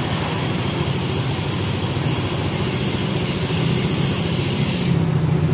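Yamaha NMAX scooter's single-cylinder engine idling steadily through its stock muffler, which had been hollowed out and then rebuilt to sound close to the original.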